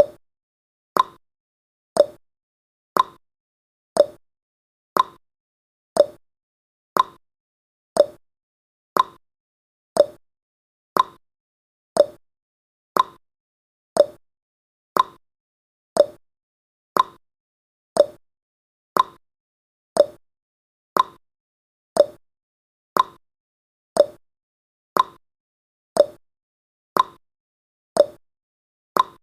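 Countdown timer's clock-tick sound effect, one sharp tick each second, perfectly regular.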